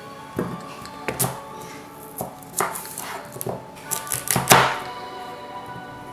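Kitchen knife cutting through raw sweet potato and knocking on a bamboo cutting board: a series of irregular chops, the loudest about four and a half seconds in. Soft background music plays underneath.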